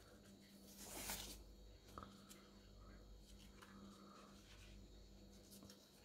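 Near silence with faint handling noise from florist tape being stretched and wound around a wire bird leg: a soft rustle about a second in and a small click about two seconds in.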